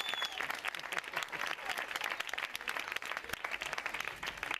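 Audience applauding, a dense crackle of many hands clapping.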